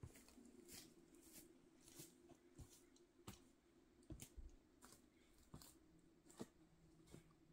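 Faint footsteps crunching over snowy rocks and forest litter, about one step every two-thirds of a second, over a faint steady hum.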